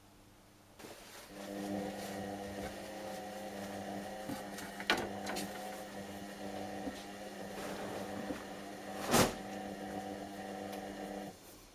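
Whirlpool washing machine running a 60 °C cotton wash: its motor starts about a second in, hums steadily for roughly ten seconds, then stops. Two sharp clunks come during the run, the louder one near the end.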